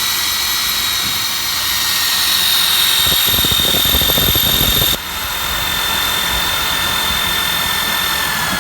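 Electric drill running at high speed, about 2100 RPM, with a cobalt–tungsten carbide multi-purpose bit cutting into cast iron: a steady high whine over cutting hiss. A rougher grinding comes in around three seconds in, and there is a brief dip about five seconds in before the drilling carries on.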